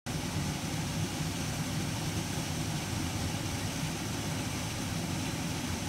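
Waterfall rushing steadily, an even unbroken roar of falling water.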